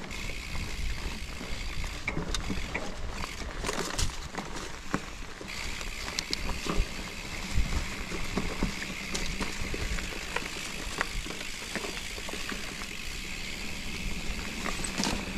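Mountain bike rolling along a dirt trail: a steady rumble of tyres on the ground, with scattered clicks and rattles from the bike over bumps.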